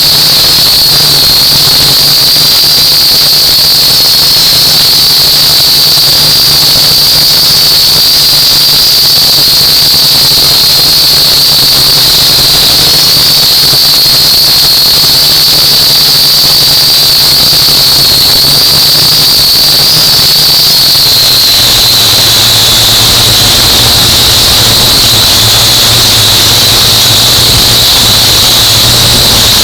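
UDI U818A quadcopter's four small brushed motors and propellers whining loudly and steadily in flight. The pitch drops slightly about twenty seconds in as the throttle eases.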